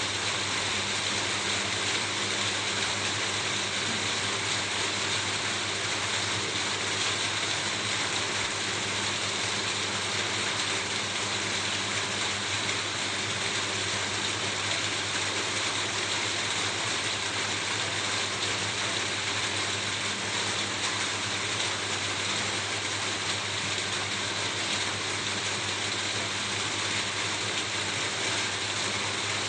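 Steady rain falling on a roof, an even hiss of drops with no change in strength.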